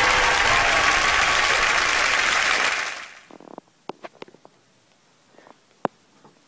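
Crowd applause that fades out quickly about three seconds in, followed by near quiet with a few faint clicks.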